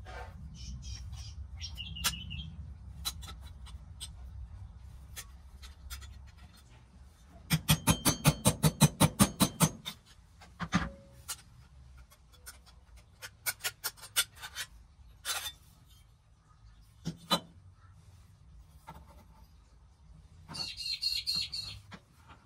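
Die-cast metal toy truck body and base plate handled and fitted together: a quick run of about a dozen sharp clicks, about six a second, a little after seven seconds in, then scattered single clicks and knocks. Short bird chirps are heard near the start and again near the end.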